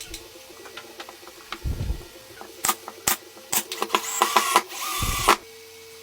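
Workshop tool sounds: scattered clicks and knocks, then about a second of louder, noisy whirring that cuts off suddenly, over a steady low hum.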